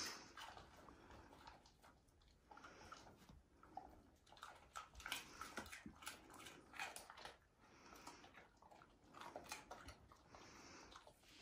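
Quiet, with faint scattered clicks and rustles from huskies moving about.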